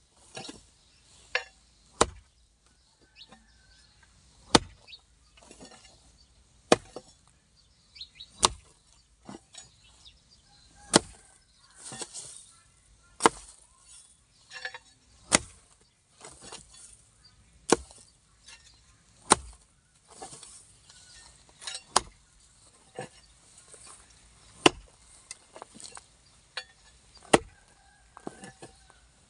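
Long-handled hoe chopping into grassy soil in slow, repeated strokes: a sharp thud about every two seconds, with lighter scrapes and rustles of earth and grass between the blows.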